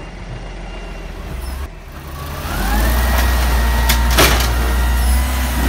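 Garbage truck engine running, then an automated side-loader's engine revving up with a hydraulic whine that rises and holds steady as its arm lifts a wheelie bin. A loud knock comes about four seconds in.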